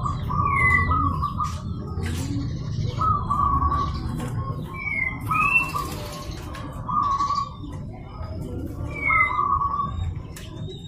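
Zebra doves cooing in short phrases repeated about every two seconds, with brief rising whistled notes between them.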